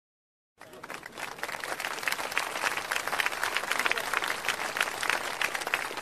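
Applause from a crowd: dense clapping that starts suddenly about half a second in.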